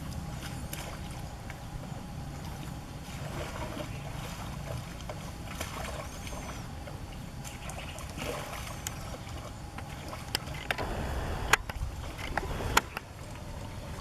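Shallow muddy water sloshing and splashing as hands work through it to catch catfish, with a run of sharp clicks toward the end.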